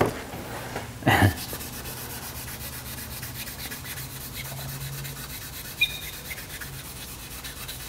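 Fine-grit sandpaper being rubbed by hand, under the fingertips, across wet automotive clear coat: a steady rubbing, scratchy sound.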